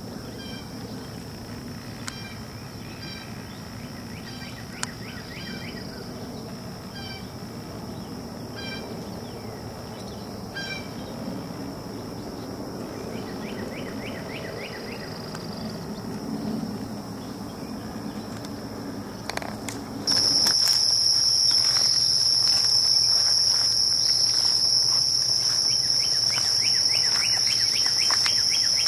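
Insects trilling in a steady, high-pitched chorus, with a bird calling in short repeated notes and a low background rumble during the first two-thirds. About two-thirds of the way in, the rumble drops away and the insect chorus suddenly becomes much louder.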